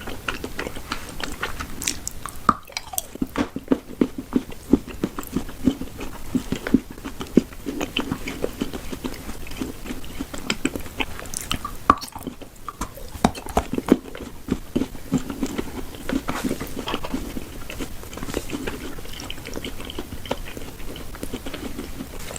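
Close-miked mukbang chewing and biting of food: a steady run of quick sharp clicks and wet mouth sounds.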